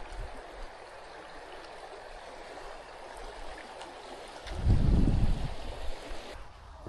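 Steady rushing of a river's flowing water that drops away abruptly near the end. About four and a half seconds in, a loud low rumble lasting about a second covers it.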